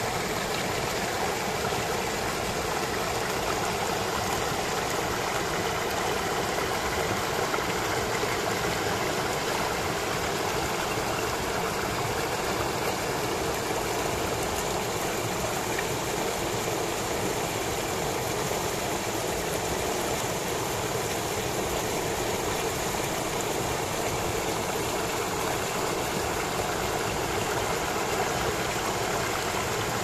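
Shallow water pouring over a low rock ledge and rushing through a small rocky cascade: a steady rush of running water.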